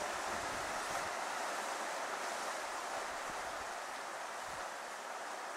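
Steady rushing outdoor noise of wind and surf, with irregular low wind buffeting on the microphone, easing slightly toward the end.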